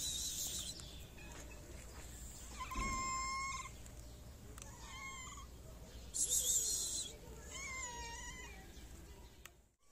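A street cat meowing three times: a long, flat meow about three seconds in, a short one about five seconds in, and a wavering one about eight seconds in. Short, high chirps sound at the very start and again around six and a half seconds in.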